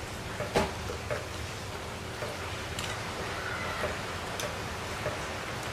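Metal tongs clicking against a stainless steel pot while stirring cassava leaves in boiling water, a few sharp clicks with the loudest about half a second in, over a steady background hiss.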